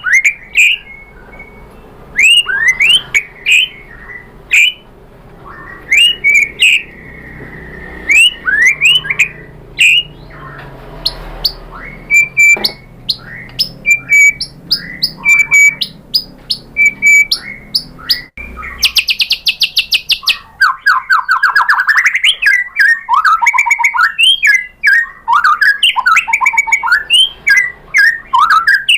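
White-rumped shama singing: loud, sharp upswept whistled notes with short pauses between them. About two-thirds of the way in, the song turns into a fast trill and then a dense run of quick, varied phrases.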